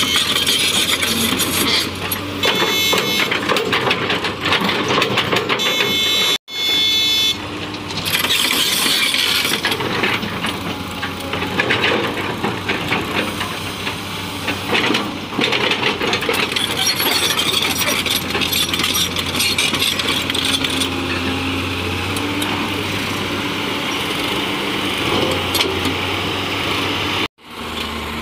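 L&T-Komatsu crawler excavator working, its diesel engine running steadily under load while the bucket scrapes and crunches through dry sand. Brief high whistling tones come in twice in the first seven seconds. The sound cuts out abruptly twice, about six seconds in and near the end.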